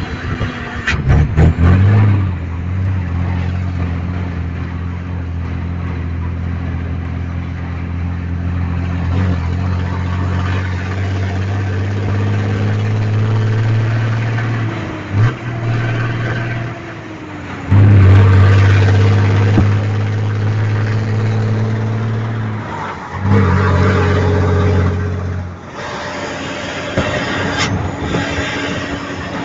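Volkswagen Constellation truck's diesel engine rumbling through a straight-pipe exhaust, held at steady revs. A few quick throttle blips come near the start, and the throttle is lifted and reopened several times. It is loudest at the opening blips and again about two-thirds of the way in, then settles to a quieter steady run near the end.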